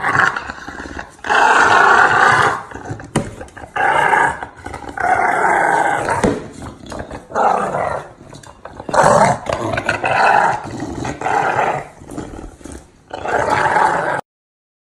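English bulldog growling in a string of loud, rough growls, each up to about a second long with short breaks between, cutting off suddenly near the end.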